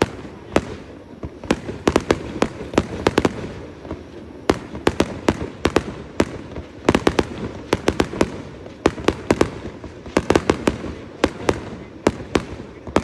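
Fireworks exploding: rapid clusters of sharp bangs and crackles, a new cluster every second or two.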